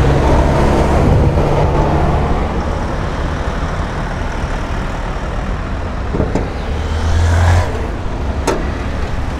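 Road traffic: engines of passing vehicles hum steadily, with a louder swell about seven seconds in. A single sharp click comes near the end.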